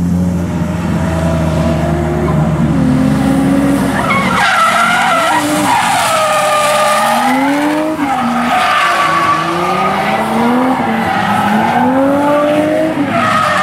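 Nissan Skyline R32 drift car sliding with its tyres squealing. Its engine holds a steady note at first, then about four seconds in starts revving up and down in repeated rising sweeps as the throttle is worked through the drift.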